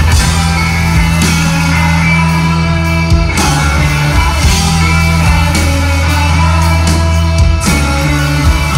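Live rock band playing loudly: electric guitars over long held bass notes that change every few seconds.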